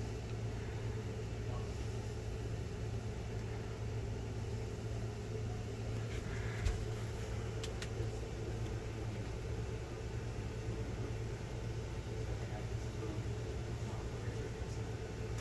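Steady low background hum of a large indoor space, with a few faint clicks and a soft thump about six and a half seconds in.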